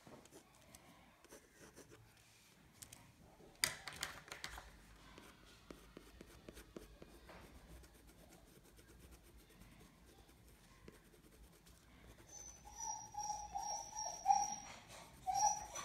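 Soft scratching of a black oil pastel rubbed across sketchbook paper, with one sharp knock about four seconds in. Near the end an English cocker spaniel whines, high and wavering, for about three seconds, asking to be let out.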